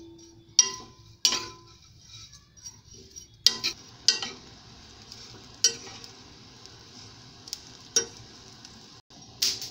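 Small dried prawns being roasted in a hot kadhai and stirred with a spatula. Scattered knocks and scrapes of the spatula against the pan, with a quick flurry of them near the end, over a faint steady sizzling hiss.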